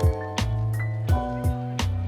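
Background music: sustained chords over a bass line, with drum hits on a steady beat about five times in two seconds.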